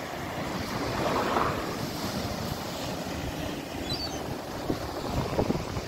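Strong wind buffeting the microphone over breaking sea waves: a steady rushing noise, with a few louder gusts near the end.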